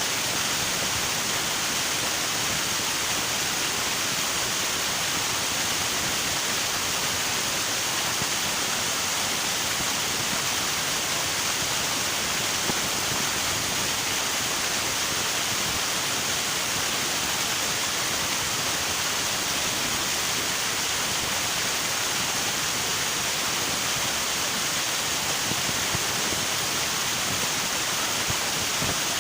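River water rushing steadily, an even, unbroken hiss with no pauses or single events.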